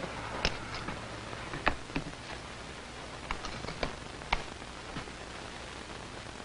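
Light, scattered clicks and taps of a glass microscope slide and lab equipment being handled on a bench, over a steady background hiss.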